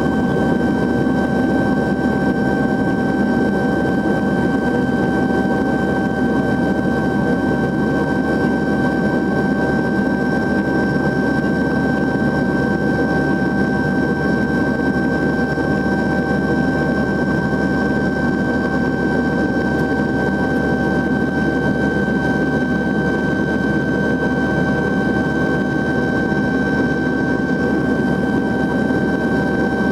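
Cabin noise of a YS-11 airliner in cruise, its two Rolls-Royce Dart 10 turboprop engines running steadily: a low rumble with a steady high whine on top, heard from inside the cabin.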